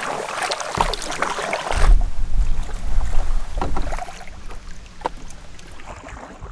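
Canoe paddle strokes splashing and swirling in lake water, with a low rumble at its loudest in the middle and scattered light knocks.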